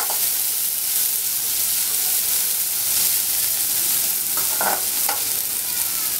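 Chopped onion, garlic, ginger and green chillies sizzling steadily in hot mustard oil in a metal kadhai, being fried till light brown. A metal slotted spatula stirs them, scraping the pan a few times about four and a half seconds in.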